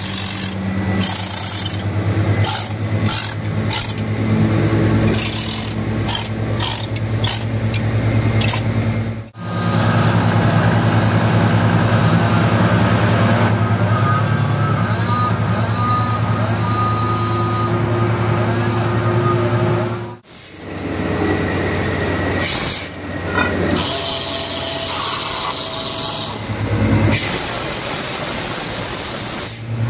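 Tracked ROC crawler drill rig running, its engine and hydraulics giving a loud, steady low drone, with irregular short hissing bursts over the first nine seconds. The sound breaks off briefly twice, about nine and twenty seconds in.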